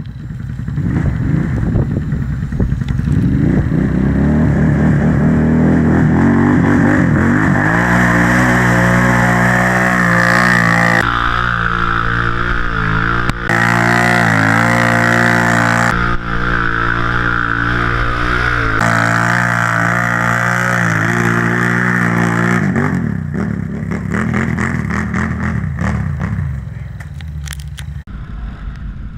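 Can-Am ATV engine revving up, then held at high revs as the quad churns through deep mud, with a few abrupt jumps in the sound; it drops back to lower revs near the end.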